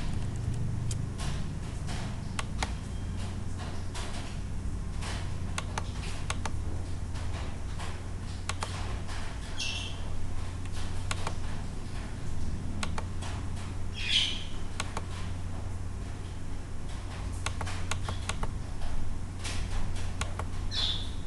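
Scattered computer mouse clicks over a steady low hum. Three short, high, bird-like chirps come through, one near the middle of the stretch and two later, the last near the end.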